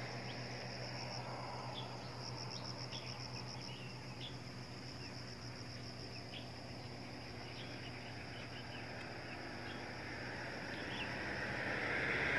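Insects trilling: a high, rapidly pulsing trill in two spells in the first few seconds, over a steady outdoor background with scattered short chirps. A rising rush of noise builds near the end.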